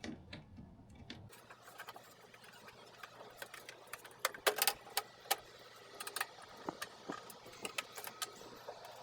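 Irregular clicks and light taps of a screwdriver, screws and plastic parts being handled while a washing machine is taken apart, with a cluster of louder clicks about halfway through.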